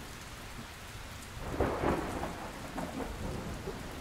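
Steady rain with thunder rumbling, the thunder swelling about a second and a half in.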